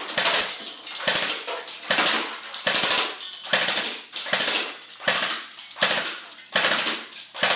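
Echo 1 G36 airsoft electric rifle firing on full auto in short bursts, about one burst a second. Each burst is a rapid rattle of shots lasting around half a second.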